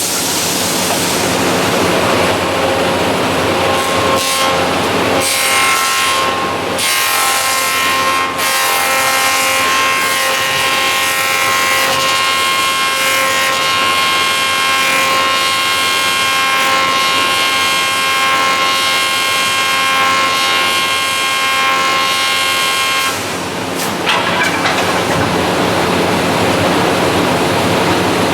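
Brusa F14 wooden-handle copy lathe running, its cutter milling a wooden bar: a loud, steady rasping machine noise with a high whine held from about five seconds in. The whine stops with a brief dip about 23 seconds in, and the cutting noise carries on.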